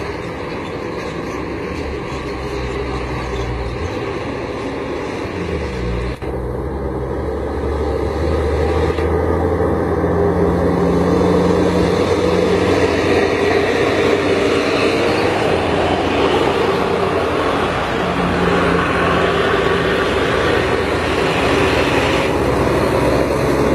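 A truck's engine running with a steady mechanical din. It grows louder about eight seconds in.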